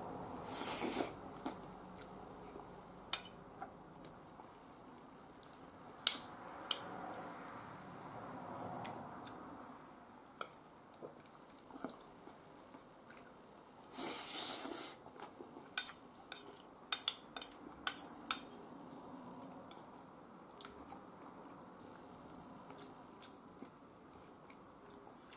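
Eating sounds: a metal spoon clinking now and then against the bowl, with a quick run of clinks past halfway, over soft chewing. Two short breathy rushes of noise come near the start and about halfway.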